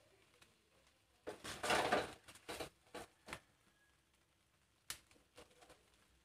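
Metal tongs and a charred sal-leaf parcel knocking and scraping on the steel grate of a gas stove: a cluster of rustling clatters in the first few seconds, then one sharp metallic click about five seconds in.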